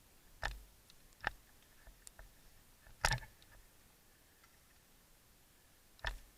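Four sharp single snaps at uneven intervals, the loudest about three seconds in, with a few faint ticks between them: an airsoft gun firing single shots.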